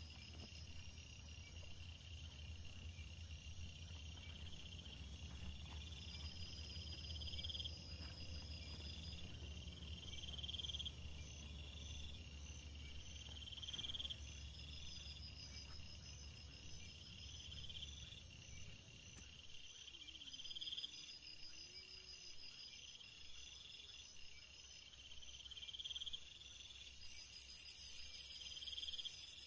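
Crickets and other insects calling outdoors: one call swells and cuts off every two to three seconds, with faster pulsed trills above it, and a dense high buzz joins near the end. A low rumble lies underneath for the first two-thirds, then fades.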